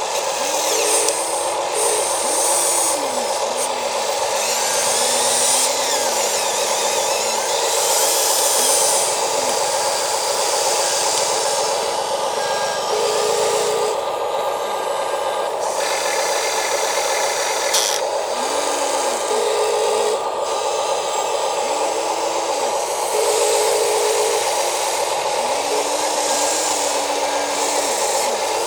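Electric motors of RC toy construction machines (excavator, trucks, loader) whining steadily as they work, the pitch of one motor rising and falling again every few seconds as it takes and sheds load, with scraping noise coming and going.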